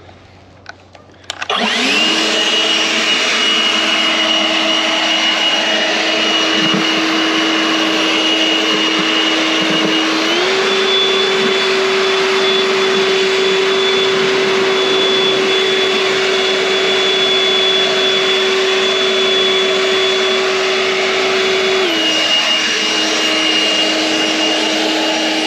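EGO Power+ 56V LB7650 cordless leaf blower spinning up about a second and a half in, then running with a steady whine and rushing air. Its speed steps up about ten seconds in and drops back to the lower speed near the end.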